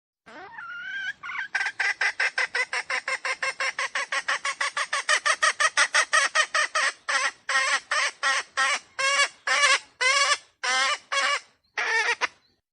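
Red junglefowl giving a long cackling series of harsh calls: a rising note at the start, then rapid calls at about five a second, slowing to about two a second over the second half and stopping suddenly near the end.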